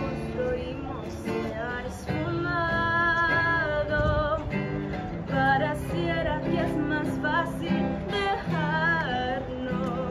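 A woman singing a melody, with some wavering held notes, over an acoustic guitar accompaniment.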